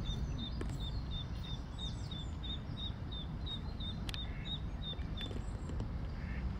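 A small bird calling a short high note over and over, about three times a second, stopping a little after five seconds in, over a steady low outdoor rumble.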